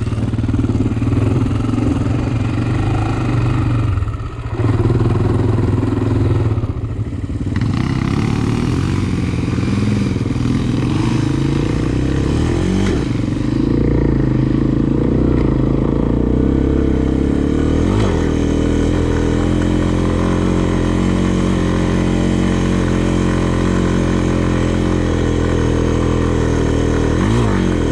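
Honda sport quad's single-cylinder four-stroke engine running, dipping briefly around four and seven seconds in, then holding a steady pitch.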